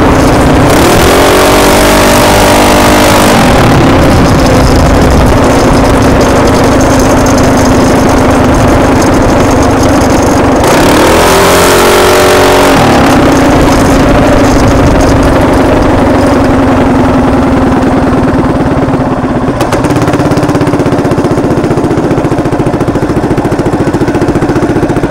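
Predator 224cc single-cylinder engine on an RT200 minibike running under way with a steady note, its pitch swelling and dropping twice. Heavy wind rush on the microphone eases near the end as the bike slows.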